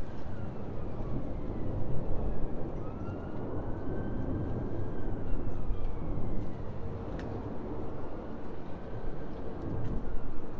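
Low, steady rumble of a plane flying overhead above the city, with faint whining tones that glide up and down and a single sharp click about seven seconds in.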